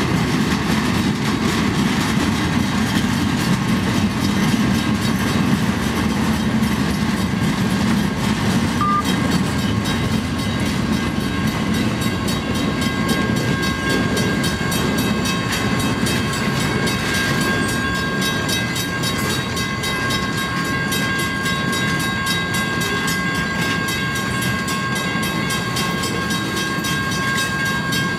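Loaded flatcars of a freight train rolling past close by: a steady rumble of steel wheels on rail. A thin, high, steady squeal joins in about halfway through and holds.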